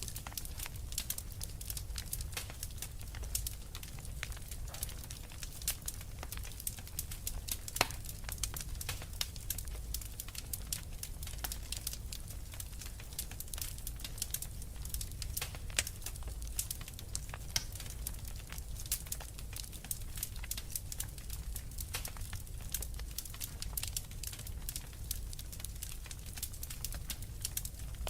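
Wood fire crackling, with dense irregular crackles and snaps over a steady low rumble.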